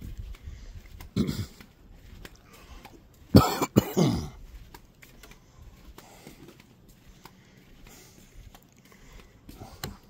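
A man coughing and clearing his throat: a short burst about a second in, then two harder coughs close together about three and a half seconds in.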